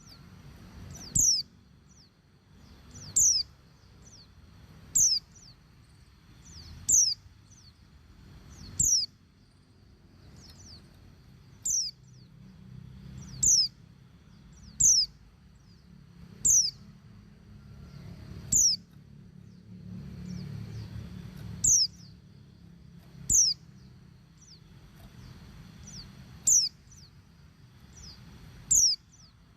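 Female white-eye (pleci) giving a short, high call that slides downward, repeated about every one and a half to two seconds: a female calling to males. A faint low rumble sits underneath.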